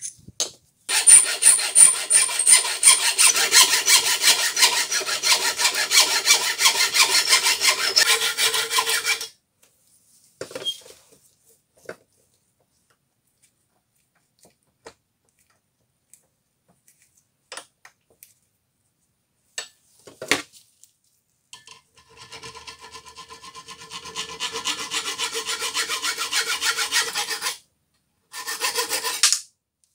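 Hand hacksaw sawing through a brass tube clamped in a bench vise, stroke after stroke in three bouts: a long loud one, a quieter one later and a short one near the end. A few light clicks and knocks come between the bouts.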